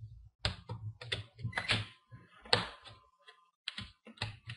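Plastic screen bezel of an HP dv6-3121nr laptop being pried up by hand, giving an irregular string of sharp clicks and snaps as its clips and adhesive let go. Snapping like this is the normal sign of the bezel releasing.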